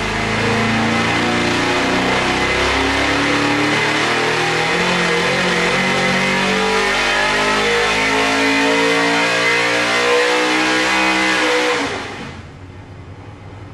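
Small-block Chevy 427 cubic-inch stroker V8 making a full-throttle dyno pull on a 175 shot of nitrous, its pitch rising steadily as it climbs through the revs. About twelve seconds in the throttle is cut and the engine falls back sharply toward idle.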